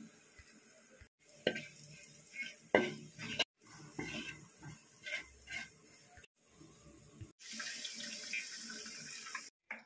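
Spoon scraping and clinking against a granite-coated pan while onions and spices are stirred, then coconut milk poured into the pan, giving a steady rushing pour for about two seconds near the end. The sound breaks off abruptly several times between short clips.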